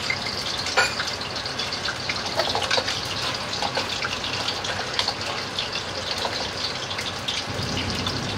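Sauce sizzling and bubbling in a hot wok around fried eggplant and bitter gourd slices, thickening after a flour-and-water slurry was stirred in. A few light clicks of a utensil against the wok.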